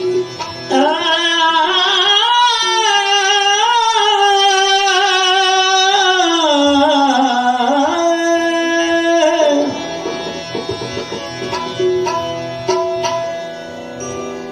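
A man sings one long, gliding bhajan phrase over steady instrumental accompaniment. About two thirds of the way in the voice stops, and the held instrumental tones carry on with a few drum strokes.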